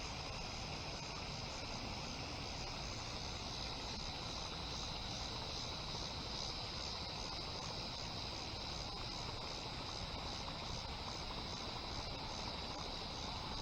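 Outdoor ambience: a steady high-pitched drone that pulses about twice a second, over a low rumble of wind.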